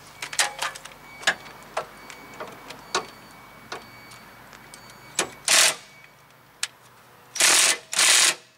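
Metal hand tools clicking and tapping on a rear brake caliper bracket and hub, a sharp click every half second or so. In the second half come three short, loud rushes of hiss.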